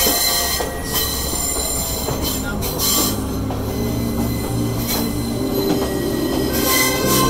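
Passenger train's steel wheels squealing steadily as the train rounds a tight curve, over the rumble of the running carriages, heard from an open carriage window.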